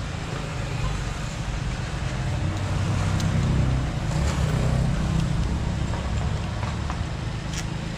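Steady low background rumble, with a few faint light metallic clicks as bolts are turned out of a small engine's crankcase cover by hand.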